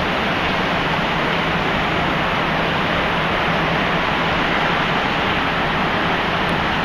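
Steady, even roar of city street traffic, with no single event standing out.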